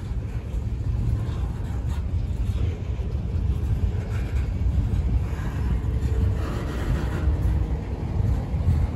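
Freight train of lumber-loaded flatcars rolling past, a steady low rumble of steel wheels on the rails.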